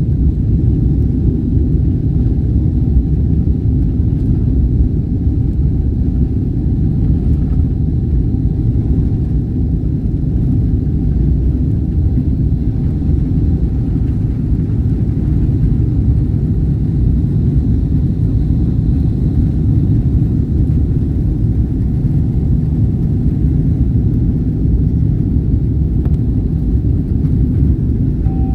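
Cabin noise of a Boeing airliner on its takeoff roll and climb-out: a loud, steady low rumble from the jet engines at takeoff thrust, with a faint steady whine above it.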